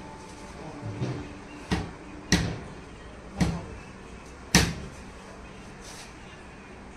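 Five sharp knocks, unevenly spaced over about four seconds, the last the loudest, over a steady low hum.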